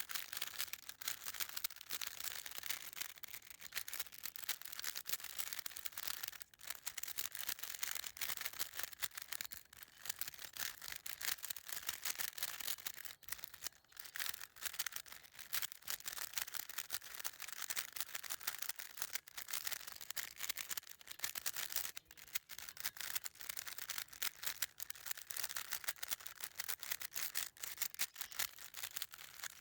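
A Rubik's Cube being scrambled: its plastic layers are turned rapidly, giving a continuous run of quick clicks and rattles, with a few brief pauses between turns.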